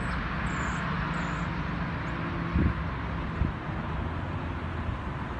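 Steady road noise and low engine hum of a car driving slowly, with two brief low thumps, one about two and a half seconds in and one about three and a half seconds in.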